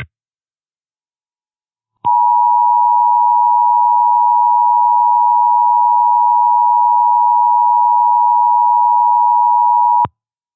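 Emergency Alert System attention signal: a loud, steady two-pitch tone near 1 kHz (the EAS 853 and 960 Hz pair). It starts about two seconds in after silence, holds for about eight seconds and cuts off suddenly. It announces an incoming emergency alert message.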